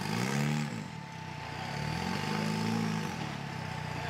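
Rock crawler buggy's engine revving up and back down in bursts as it claws up a boulder: two swells, one at the start and one from about two to three seconds in, with another beginning near the end.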